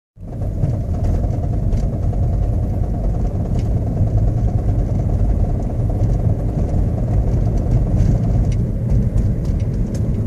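A 2010 Toyota Prius being driven at low speed, with a steady rumble of road and drivetrain noise, and a few faint, irregular clicks over it.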